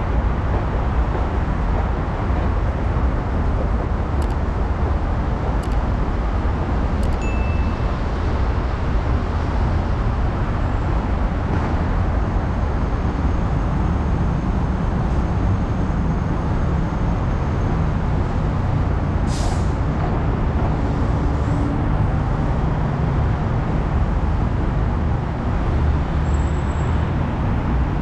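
Steady noise of road traffic on a busy multi-lane road. A short, sharp, high hiss comes about two-thirds of the way through.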